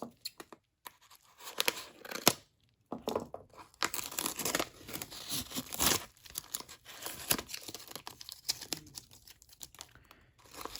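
Package wrapping being ripped and pulled open by hand: irregular tearing and crinkling with a few sharp snaps.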